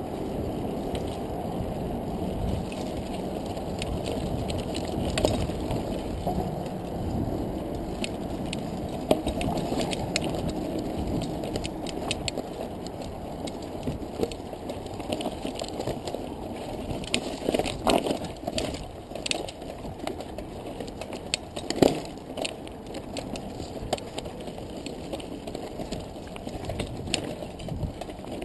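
Mountain bike riding over loose rock and dirt: a steady low rumble from the tyres and the moving bike, broken by frequent clicks and rattles and sharp knocks as it hits rocks, the loudest about 18 and 22 seconds in.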